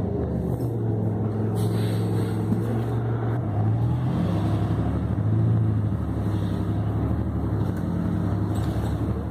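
Inside a moving city bus: a steady low drone from the bus's engine and drivetrain, shifting in pitch a few times as the bus changes speed, over the hiss of tyres on a wet road.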